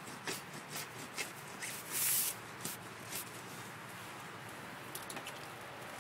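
Water from a high-volume garden hose pouring into a flooded hole, the muddy water churning and foaming with hydrogen peroxide. The sound is a steady splashing hiss with irregular crackles over the first few seconds and a louder rush about two seconds in.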